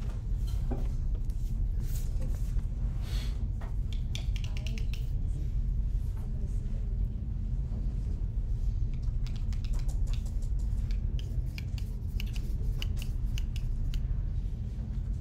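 Classroom room tone during a quiet work period: a steady low hum with scattered small clicks and taps from students working at their desks.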